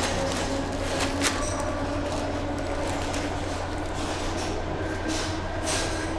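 Steady machine noise with a constant low hum and a faint steady tone, broken by a few brief rustles and knocks from handling.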